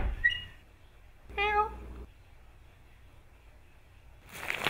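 A cat meows once, a short call about a second and a half in. A rushing noise builds up near the end.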